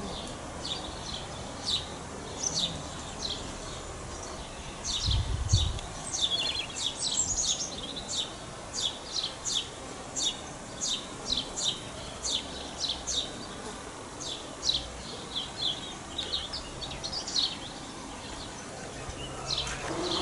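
Small birds chirping outdoors, short high notes repeated many times throughout. A brief low rumble about five seconds in.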